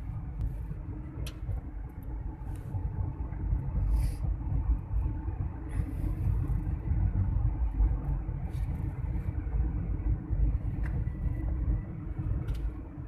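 Steady low rumble of a moving car's engine and tyres on the road, heard inside the car's cabin, with a few faint ticks.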